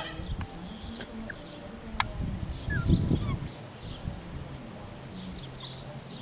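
Birds chirping in the background, short high twittering calls scattered throughout, over a low rumble.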